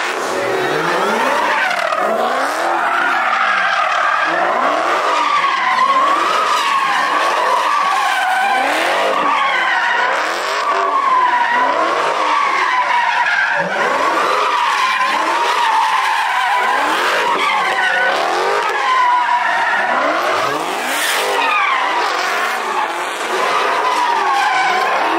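A Dodge muscle car doing donuts: its tyres squeal without a break, wavering in pitch, while the engine revs up again and again, about once a second.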